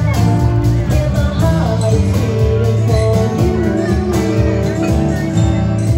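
Live band playing a song, a woman singing the melody over acoustic guitar and bass.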